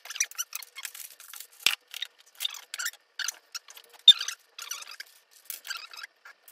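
Irregular scraping, rustling and clicking as 3D printer parts are handled and moved about on a table. There is a sharp knock about one and a half seconds in and a louder click about four seconds in.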